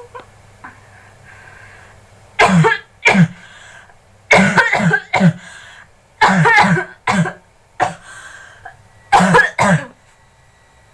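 A person coughing about ten times in four short bouts, a staged coughing fit meant to pass for coughing up blood.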